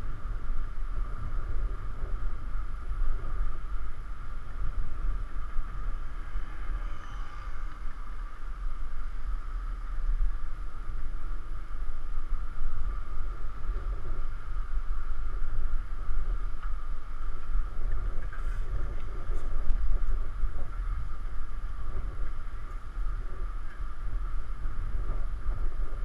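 Wind buffeting the microphone of a bicycle-mounted GoPro while riding, a steady, fluttering low rumble with a constant band of noise above it.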